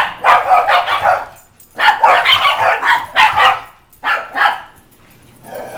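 Small dogs barking in quick, irregular volleys during rough play as they gang up on one dog, the barking stopping about a second before the end.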